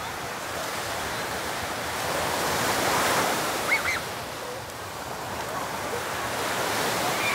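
Sea surf washing onto a sandy beach, a steady rush that swells around three seconds in and again near the end.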